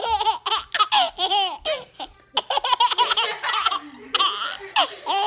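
A baby laughing hard in a run of short, high-pitched bursts, each rising and falling in pitch, set off by his mother's hiccups.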